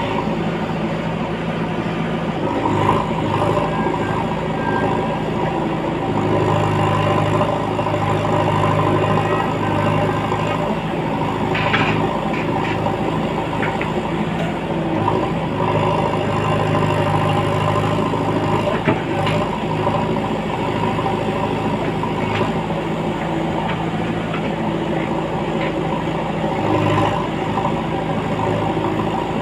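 JCB 3DX backhoe loader's diesel engine running steadily, with a few short knocks.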